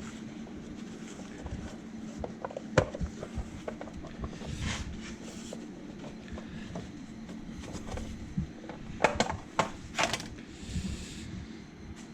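Clips and brackets of an Audi 2.6 V6's timing-chain covers being unclipped by hand: scattered sharp clicks and knocks, a loud one about three seconds in and a quick cluster around nine to ten seconds, over a steady low hum.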